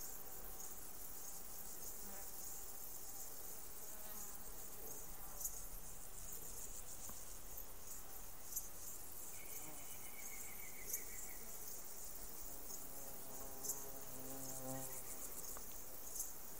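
Faint, steady high-pitched chirring of insects, with a few soft clicks a few seconds apart. A faint short call comes about ten seconds in.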